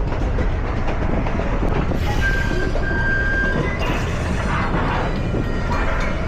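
Napa Valley Wine Train running along the track with a steady low rumble. A thin high tone sounds twice near the middle.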